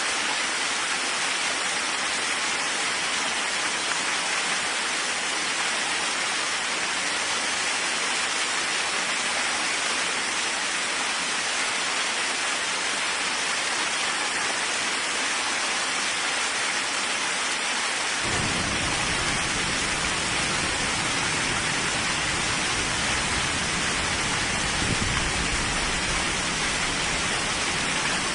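Steady rain hiss. About two-thirds of the way through, a deep low rumble of thunder comes in suddenly and carries on under the rain.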